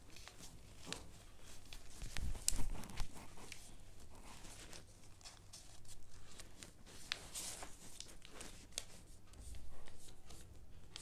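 A strip of paper being folded and creased by hand: scattered rustling and crinkling, with a louder cluster of handling bumps about two to three seconds in.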